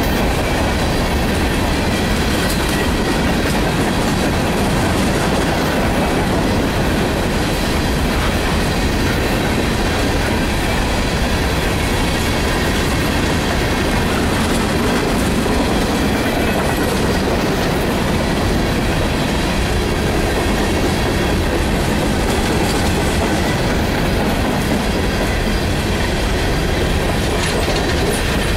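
Empty coal hopper cars of a freight train rolling steadily past on the rails, a loud continuous running noise of wheels on track.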